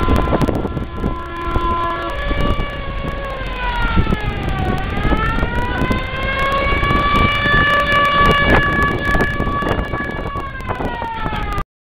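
A car horn sounds steadily at first, then from about two seconds in a siren wails over the engines of passing cars. Its pitch falls, rises again and holds, then eases down before the sound cuts off.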